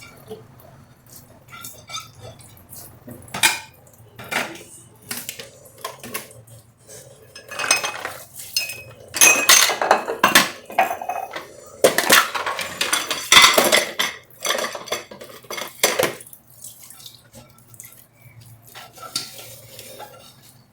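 Dishes and cutlery clinking and clattering irregularly as they are washed at a kitchen sink, busiest in the middle stretch.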